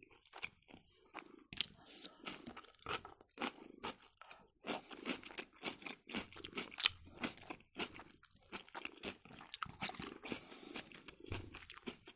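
A person chewing and crunching kimchi close to the microphone, with irregular crunches several times a second.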